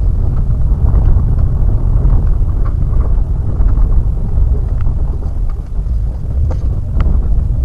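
A car driving, heard through a dashcam: a steady, loud low rumble of engine and road noise with a few faint scattered ticks.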